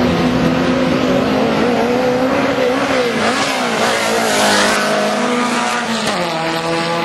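Drag racing cars' engines running at high revs as they launch and accelerate down the strip, with a burst of tyre squeal.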